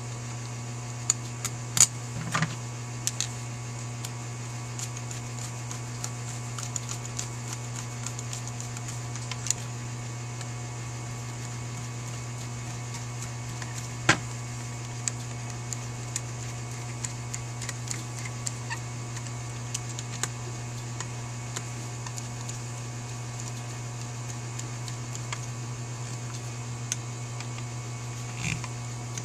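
Scattered small metallic clicks and taps of a screwdriver and small screws being driven into a carburetor float bowl, over a steady low hum.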